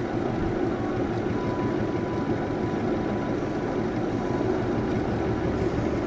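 Home-built Bedini SG monopole pulse motor, made from a ceiling fan, running steadily at about 5 volts: a rapid, even pulsing hum from the spinning rotor and the pulsed coil, with a faint thin whine for a few seconds in the middle.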